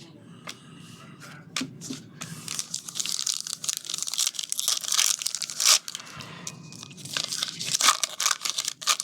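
Foil wrapper of a trading-card pack being torn open and crinkled, a few clicks at first, then dense crackling from about two seconds in.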